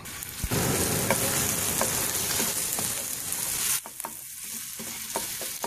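Garlic paste sizzling in hot olive oil in a nonstick frying pan while a silicone spatula stirs it. The sizzle is loud at first, drops sharply about three and a half seconds in, and then goes on softer with the spatula's scattered scrapes and taps.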